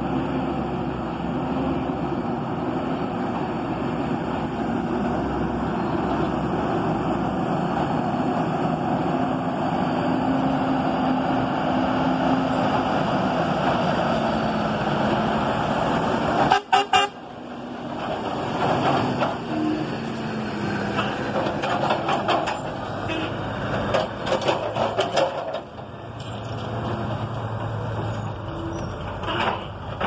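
Diesel engine of a loaded International log truck running as it comes up the gravel road and passes close by. About halfway through there is a short double horn toot, then clattering and clunking from the truck and its log load as it pulls away.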